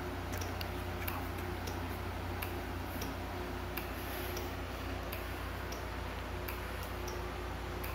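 Automotive flasher and turn-signal relays clicking in a steady rhythm, a little over one click a second, as they switch homemade railroad crossing lights back and forth; a steady low hum runs underneath.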